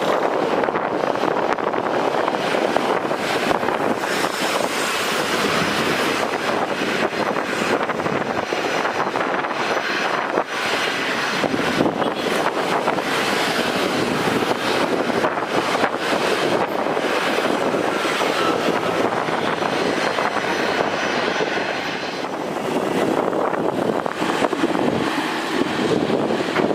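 Jet aircraft engines at the airport, a steady broad rush with a slight dip in level about 22 seconds in.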